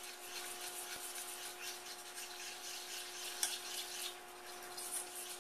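Butter-and-flour roux being stirred with a metal utensil in a stainless steel saucepan, with faint irregular scrapes against the pan. A steady hum from the induction cooktop runs underneath.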